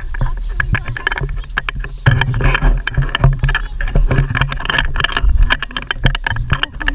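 Wind rumbling on the action camera's microphone while walking along a sandy track, with many small crunches and scuffs of footsteps and handling.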